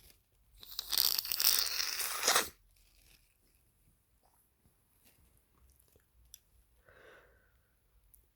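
A person with a head cold blowing their nose hard, a loud rushing blast of about two seconds starting half a second in. A brief faint voiced sound follows near the end.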